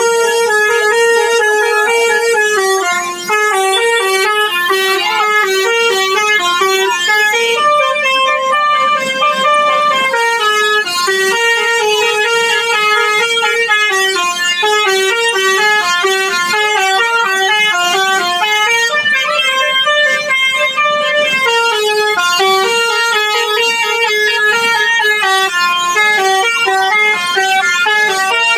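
Indonesian bus 'basuri' telolet horn, a multi-tone musical horn, playing a melody of quick stepping notes without a break.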